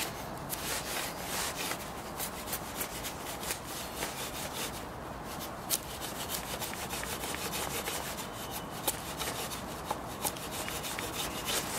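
Garden machete pulled two-handed along a peeled log like a drawknife or cabinet scraper, in repeated scraping strokes that shave the wood flat.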